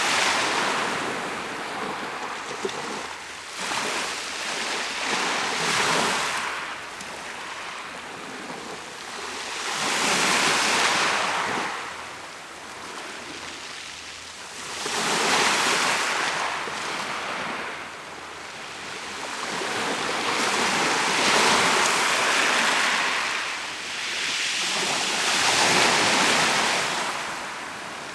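Sea waves breaking and washing on the shore, each surge swelling and ebbing about every five seconds, with some wind noise on the microphone.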